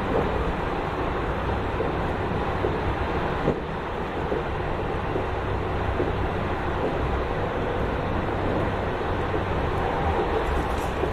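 Steady running noise of a moving train: an even rumble with a low hum underneath.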